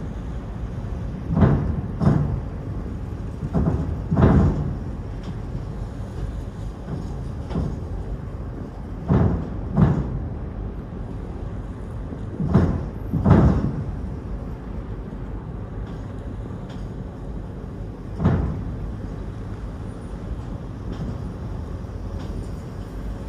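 Car ferry at the quay, its engine running in a steady low hum, broken by heavy clunks that mostly come in pairs under a second apart: four pairs, then a single clunk.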